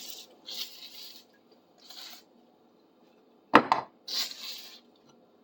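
Oil going onto a cleaned, formerly rusty metal piece as it is wiped down: a few short hissy rubbing strokes. A single sharp clack about three and a half seconds in is the loudest sound.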